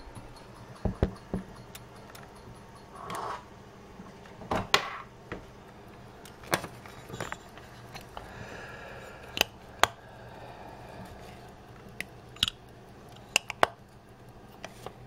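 Soviet Molnija pocket watch's metal case being handled, with irregular sharp clicks and taps as its hinged covers are opened and closed.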